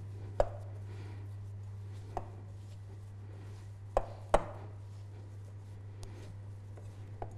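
Hands kneading and squeezing crumbly shortbread dough in a glass mixing bowl, with a handful of sharp knocks against the glass: one early on, one about two seconds in, a loud close pair about four seconds in, and a faint one near the end. A steady low hum runs underneath.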